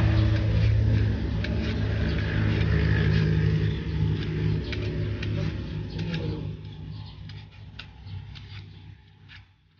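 A motor vehicle's engine running steadily, then fading away over the last few seconds, with light clicks of a hand peeler scraping mango skin.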